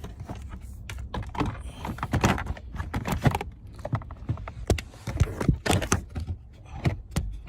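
Irregular clicks and knocks of hard plastic, several a second, as the car's lower dashboard trim panel is handled and pushed back into place.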